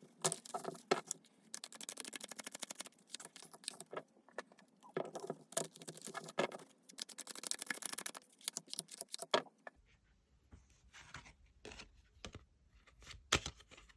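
Tarot cards being shuffled and handled by hand: a dense run of rapid papery clicks and snaps for about ten seconds, then a few sparser snaps over a low hum.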